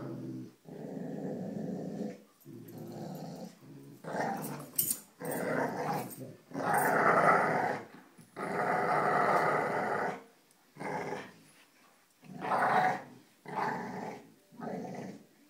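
Dogs growling in play during a rope tug-of-war. The growls come in a string of bouts, each half a second to two seconds long with short breaks between them, and are loudest and highest-pitched in the middle.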